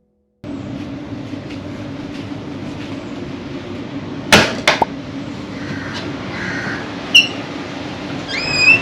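Steady background hum and rumble. Two sharp knocks come about halfway through, and a couple of short bird-like chirps follow near the end, the last one rising in pitch.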